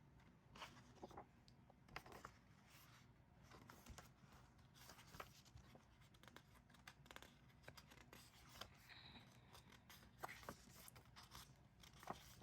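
Faint paper rustling and soft handling clicks, scattered and irregular: pages of an album photo book being handled and turned.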